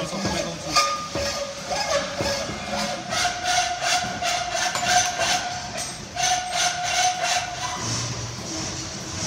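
Hand hacksaw cutting a steel pipe clamped in a bench vise, in quick even strokes of about three a second, with the pipe ringing in a steady tone under the rasp of the blade. The strokes stop a little before the end.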